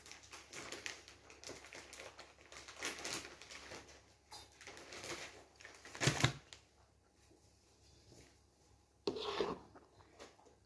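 Toddler sucking and gulping from a plastic sippy cup: a run of soft wet clicks and crackles for about six seconds, a single louder knock about six seconds in, and a short voiced sound from the child near the end.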